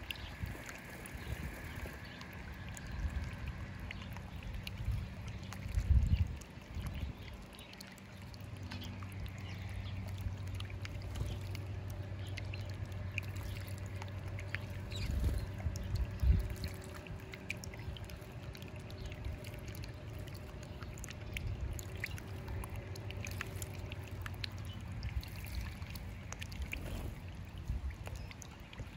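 Water of a small birdbath fountain trickling and bubbling over rocks, with splashes from small birds bathing. A few low thumps stand out, and a low steady hum comes in about eight seconds in and fades after about twenty.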